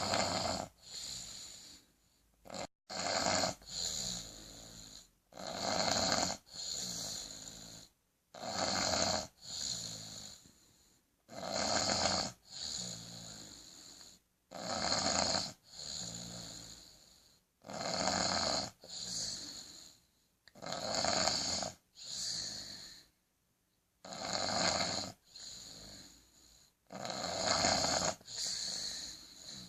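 Regular snoring, one snore about every three seconds, each in two parts with a short quiet gap before the next.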